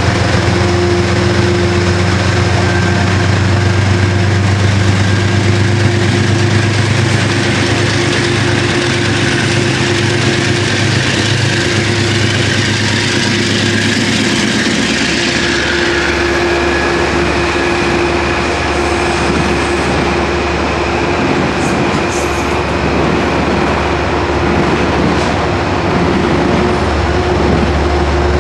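A GE P32AC-DM diesel locomotive's engine drones under power as its train pulls out, while locomotive-hauled coaches roll along the adjacent track. About halfway through, the deep engine drone drops away, and the rolling wheel and rail noise of the passing coaches carries on with a steady tone over it.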